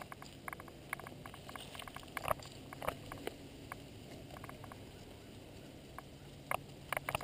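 Footsteps crunching faintly on dry grass and fallen leaves: a scattering of irregular light clicks and crackles, a few of them louder, over a faint low hum.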